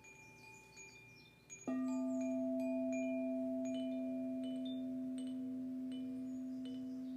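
A singing bowl struck about two seconds in, ringing on with a deep steady hum and a few higher overtones that slowly fade. Light, high chime strikes tinkle on and off throughout.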